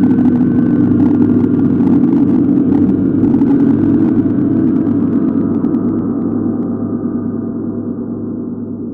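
Sustained, gong-like metallic drone from a Heavyocity Damage 2 sound-design patch. It is a dense stack of low steady tones with a faint crackle above, slowly fading over the last few seconds.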